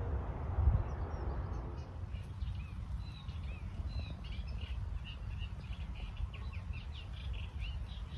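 Small songbirds singing, a busy run of short high chirps and trills starting about two seconds in, over a steady low rumble, with a single bump about a second in.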